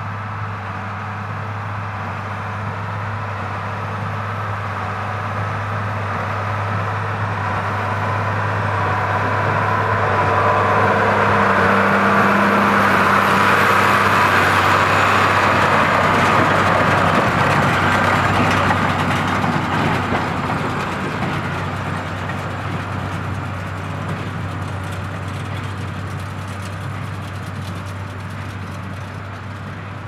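Ford 8830 tractor's six-cylinder diesel engine pulling a New Holland BB940 large square baler while it bales hay, both running steadily. The sound grows louder as the rig approaches, is loudest about halfway through as it passes close by, then fades as it moves away.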